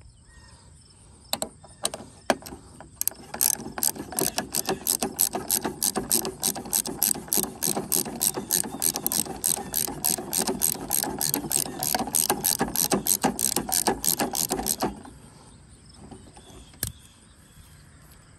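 Socket ratchet clicking steadily, about four clicks a second, as it runs the retaining bolt down onto the trimmer head's right-hand thread to fasten a chainsaw-tooth blade disc. A few single clicks come first, and the run stops suddenly near the end.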